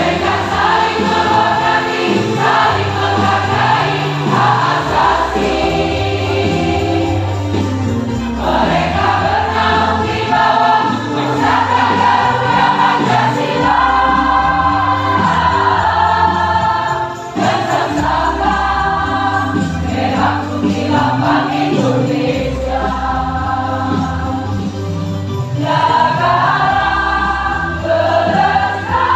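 A large choir singing together in phrases over an instrumental accompaniment with a sustained bass line.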